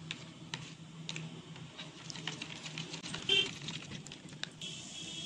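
A spoon stirring milk powder into milk in a bowl, with light, irregular clicks and taps of the spoon against the bowl's sides. A faint steady hum runs underneath.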